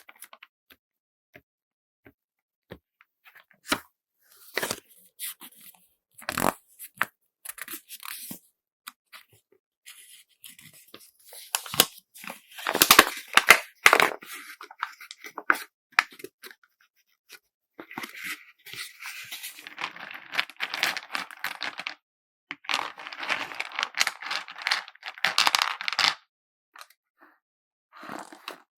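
Close-up sounds of packing beads into handmade tetra-pack pouches: scattered small clicks and taps at first, then several long stretches of crinkling rustle as the packaging is handled.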